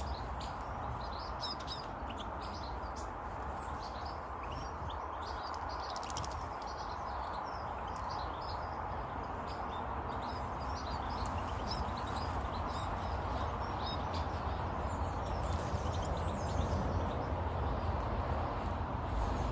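Small birds chirping and twittering, many short high calls overlapping throughout, over a steady rushing background noise and low rumble.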